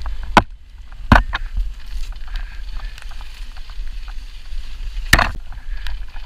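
Electric dirt bike ridden over rocky singletrack: a steady low rumble, broken by sharp knocks of the bike jolting over rocks, two in the first second or so and one more near the end.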